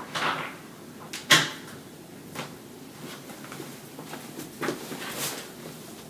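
Handling noises from a person moving at a desk: a short rustle at the start, a sharp knock or click about a second in, and two more brief rustles near the end.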